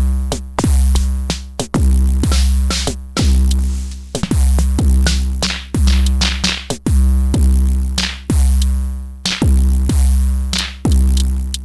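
Electronic music: a drum-machine beat over a deep, sustained bass, with kick drums that drop sharply in pitch.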